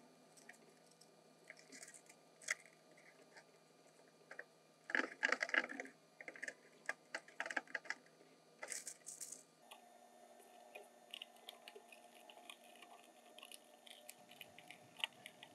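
Faint handling sounds of foil-faced floor soundproofing being laid and pressed into place: scattered light clicks, taps and rustles, with louder crinkling bursts about five seconds in and again near nine seconds.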